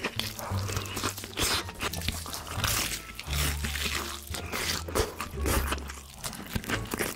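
Close-miked eating: a steady run of crisp crunching bites and chewing of food.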